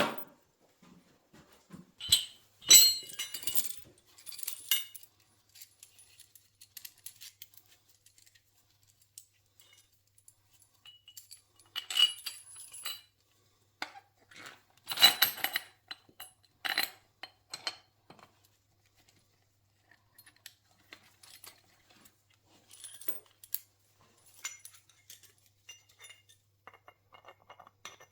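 Metal parts and hand tools clinking and rattling as brackets are bolted on: scattered clicks and short clattering bursts with quiet gaps between.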